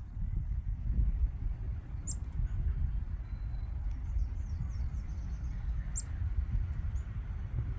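Wind buffeting the microphone in a steady low rumble, with a few faint bird chirps, the clearest about two seconds in and near six seconds.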